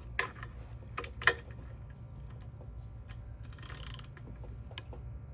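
Ratchet wrench with a 1/2-inch socket working the shift shaft lock bolt out of an NV3500 transmission's front housing. A few sharp metal clicks come in the first second or so, then a short run of rapid ratchet clicking a little past the middle.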